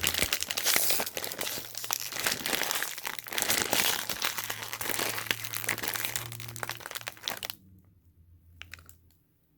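A crinkly snack bag of Slim Jim Fire Fries being pulled and squeezed in the hands as someone struggles to open it the regular way, a dense crackling crinkle that stops about seven and a half seconds in, with one short rustle near the end.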